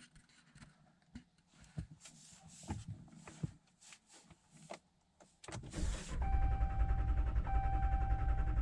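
2019 Ram pickup being tried with its push-button start while it will not turn over. A few light clicks, then about five seconds in a fast, low pulsing comes on and a dash warning chime starts sounding, one held tone repeating about every second and a bit.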